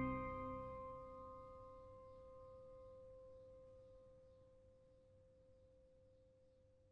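The last held chord of the closing music dying away: a few steady tones fade out over about four seconds, one middle tone lingering longest, leaving near silence.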